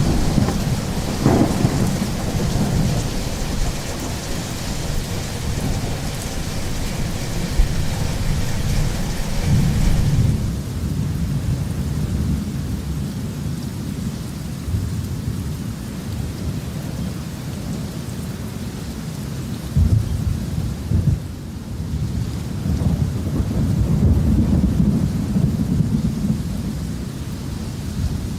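Thunderstorm: steady rain hiss over rolling thunder that swells and fades repeatedly, with a sharp crack about a second in. The rain's high hiss eases after about ten seconds while the low rumbling goes on.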